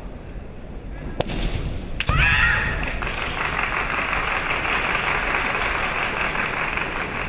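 Bamboo shinai clacking in a kendo exchange: a light click about a second in, then a sharp strike about two seconds in, followed at once by a fencer's high-pitched shout. A steady wash of crowd noise follows.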